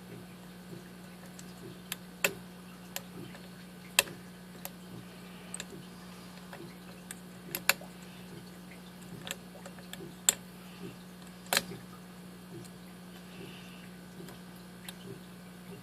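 Lock pick working the pins of a Master Lock 6-pin lockout-tagout padlock core with spool pins: scattered sharp clicks and ticks, a dozen or so at uneven spacing, as pins are lifted and set. A steady low hum runs beneath.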